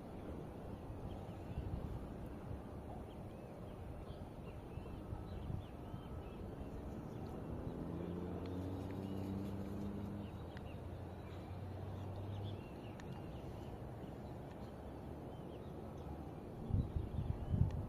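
Outdoor ambience with faint small-bird chirps and a low rumble. A steady low engine hum, like a distant motor, runs for several seconds in the middle. Louder low rumbling, like wind or handling on the microphone, comes in near the end.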